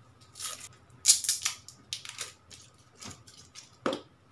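Rustling and light clicking as a laptop charger and its white cord are picked up and unwrapped by hand, in short irregular bursts, the loudest just after a second in.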